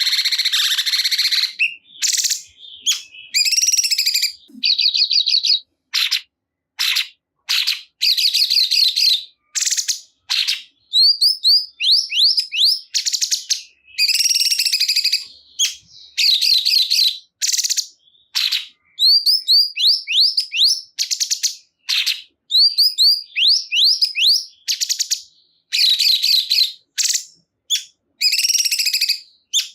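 Cungkok songbird singing loudly: short phrases of rapid chirps and quick sweeping whistled notes, one after another with brief pauses between.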